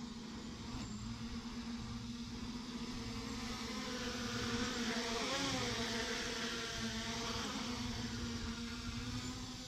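A small engine or motor buzzing at a steady pitch. It grows somewhat louder toward the middle, where a second pitch briefly rises and falls, then eases off.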